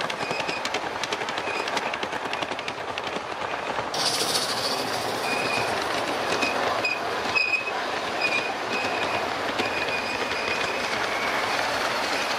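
Metal wheels of a G-scale model freight train rolling past on the track, with rapid clicking. The sound gets louder about four seconds in, and short high wheel squeals come on and off after that.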